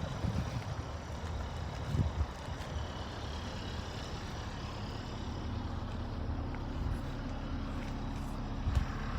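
Steady low rumble of a motor vehicle, with a single thump about two seconds in and a faint steady engine hum in the second half.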